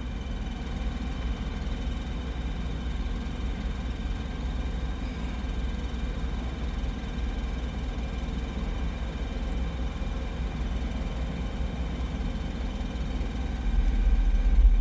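Car audio subwoofers playing a deep, steady bass line, getting louder about a second before the end.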